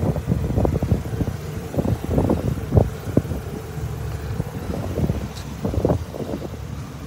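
Wind buffeting the phone's microphone outdoors: irregular low rumbling gusts and flutter.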